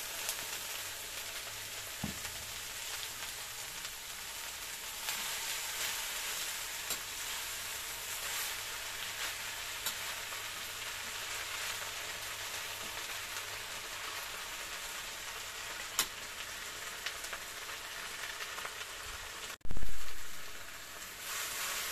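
Water spinach sizzling in hot oil in a wok as it is stir-fried, with occasional taps of the metal wok spatula. A sudden dull thump about twenty seconds in.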